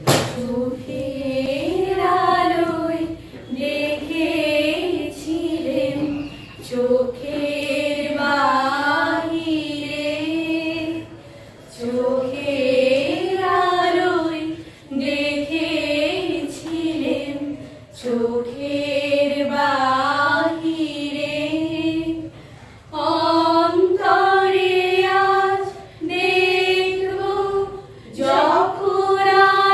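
A group of women singing a song together in unison, phrase by phrase, with short breaks between the sung lines.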